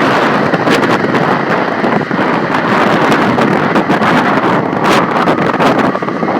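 Strong wind blowing as a steady, loud rush.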